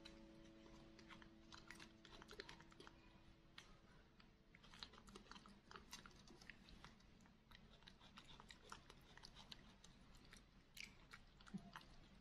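Faint, irregular wet smacking and clicking of monkeys chewing and biting tangerine segments.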